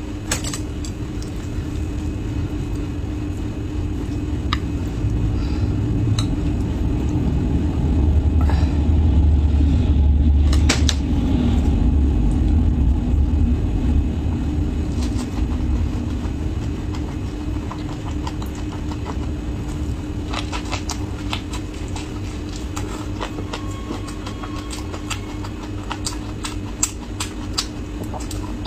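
Hands folding a soft flatbread wrap, with scattered small clicks and rustles, over a steady low rumble and hum. The rumble swells about a third of the way in.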